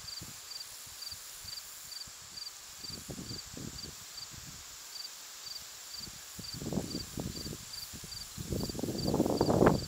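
Insects chirping in a steady rhythm, about two or three chirps a second. From about six seconds in, louder irregular clunks and rustles of water-filled plastic milk jugs being shifted and set down on a wooden bench, loudest near the end.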